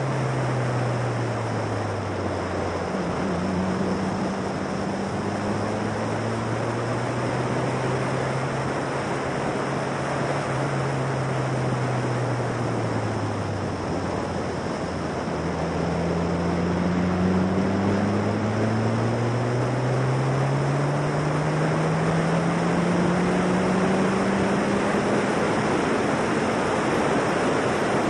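Formula Silverstone single-seater's 1.6-litre Ford Duratec four-cylinder engine on track, its revs falling twice as the car slows and then climbing again through the gears under acceleration. A heavy rush of wind on the open-cockpit microphone runs under the engine note.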